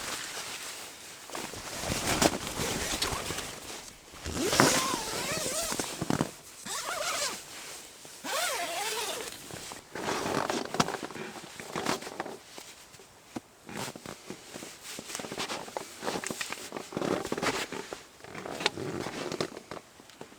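Rustling and handling of camping gear: a string of uneven swishes and scrapes with a few clicks, including a zipper-like pull.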